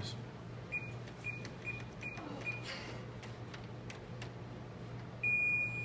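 Electronic cash register keypad beeping as keys are pressed: five short beeps of the same pitch in quick succession, then one longer, louder beep near the end.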